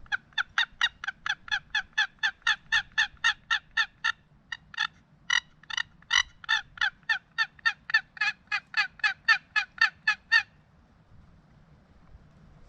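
Box turkey call worked in a fast run of short, sharp yelps, about four to five a second, with a brief break about four seconds in, stopping a little past ten seconds.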